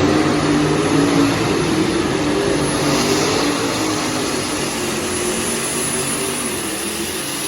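Competition pulling tractor running at full throttle, its engine note wavering under load, with a thin high whine over the top. The din slowly fades.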